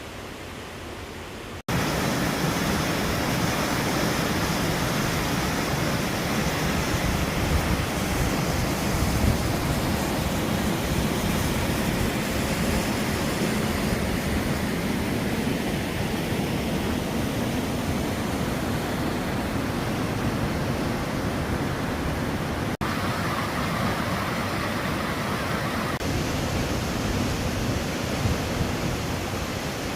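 Steady roar of a waterfall's rushing water: a loud, unbroken rush with no rhythm, jumping up suddenly about two seconds in.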